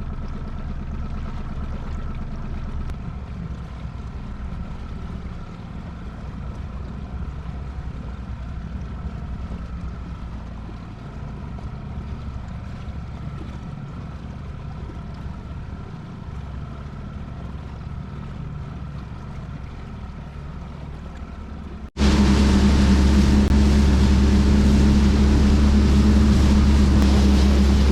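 Boat motor running steadily at low trolling speed. About 22 seconds in the sound cuts abruptly to a much louder, steady motor drone with water noise.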